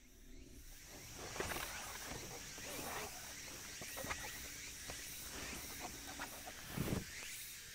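Fabric rustling and shuffling as camping gear, a black canvas bag and sheet, is handled and pulled out of a car's open hatchback, with a dull thump near the end. A steady high insect drone runs underneath.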